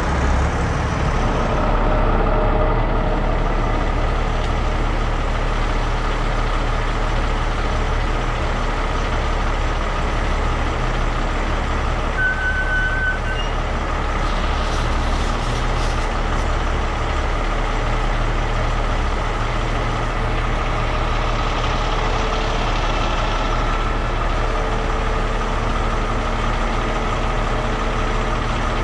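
Heavy rotator tow truck's diesel engine running steadily, with a few short hisses of air about halfway through.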